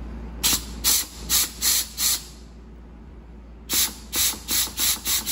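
Compressed-air blow gun fired in short hissing puffs to air-check an E4OD transmission's coast clutch drum, testing that the clutch applies and its sealing rings hold. About five quick puffs come in the first two seconds, then after a pause another run of five near the end.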